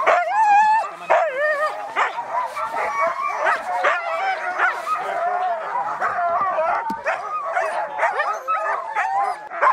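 A team of harnessed sled dogs barking, yelping and whining all at once, a dense unbroken chorus of many overlapping voices: the dogs' eager excitement before the team sets off.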